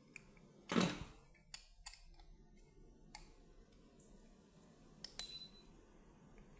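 Scattered clicks and light metal clinks as the filler's nozzle parts are handled with tools. There is one louder knock about a second in, and a short ringing metallic click a little past the middle.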